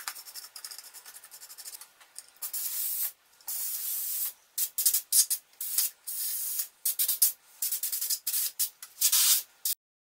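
A brush scrubbing dust off a computer motherboard with quick scratchy strokes, then about two seconds in a rapid string of short hissing blasts of compressed air aimed at the board, the longest lasting under a second.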